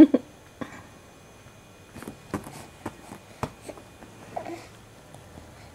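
Quiet room with a handful of sharp clicks and taps spread over about a second and a half, then a brief soft vocal sound from a baby.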